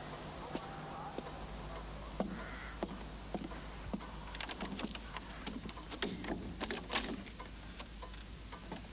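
Scattered footsteps and light knocks as people move in through a doorway, thicker in the second half, over a steady low hum.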